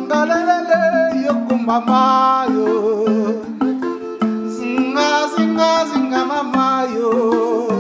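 Background music: a song with a sung melody over plucked-string accompaniment and a steady beat.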